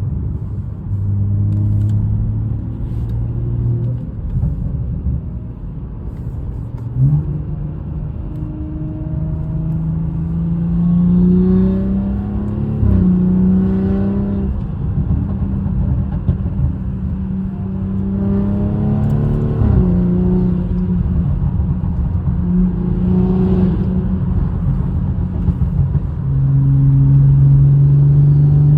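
Turbocharged car engine accelerating under boost. Its pitch climbs and then drops back several times, as at gear changes. The owner suspects the noise it makes may be an exhaust leak, as ChatGPT suggested.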